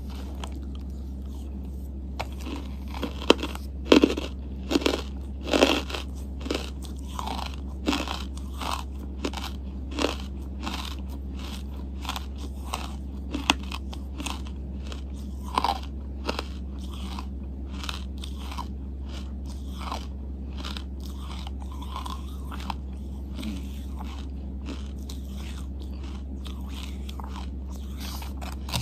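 Close-up mouth sounds of someone biting and chewing pieces of charcoal: irregular sharp crunches, thickest in the first half and thinning out later, over a steady low hum.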